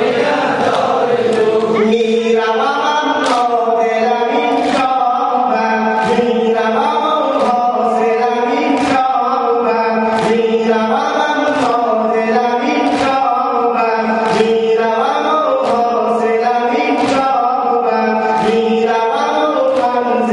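Male mourners chanting a Shia lament for Ashura in unison over a held low note, with rhythmic chest-beating (sineh zani): sharp hand slaps on the chest at an even pace of about one and a half a second.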